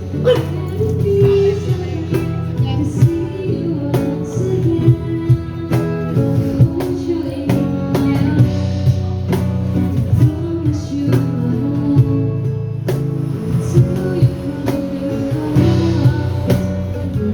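Live band playing a pop song: singing over electric guitar and drum kit, with a steady drum beat.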